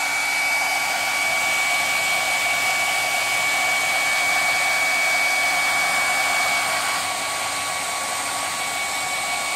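Hand-held hair dryer running on its strongest setting: a steady rush of air with a steady whine from its fan motor.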